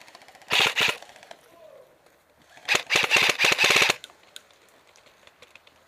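Airsoft gun firing on full auto: a short burst of rapid shots about half a second in, then a longer burst of about a second in the middle.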